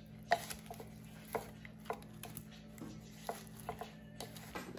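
Wooden salad servers tossing roasted potatoes and arugula in a wooden bowl: irregular light knocks and clacks of wood against wood and potatoes, over a faint steady low hum.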